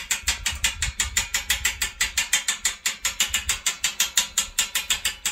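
Hand winch being cranked, its ratchet pawl clicking steadily about six times a second as it draws in the cable that tilts the solar panel frame back.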